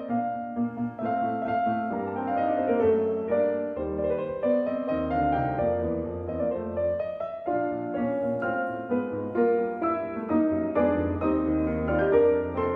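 Piano playing a continuous passage of chords and melody notes.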